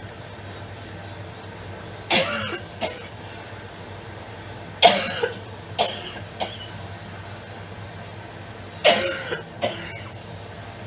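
A woman coughing in three fits, about three seconds apart. Each fit is one hard cough followed by one or two smaller ones, as food has gone down the wrong pipe while she eats.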